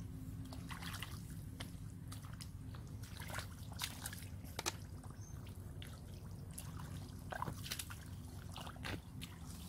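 Hands and bare feet splashing and squelching in shallow muddy water, a scatter of short wet splashes and drips over a steady low rumble.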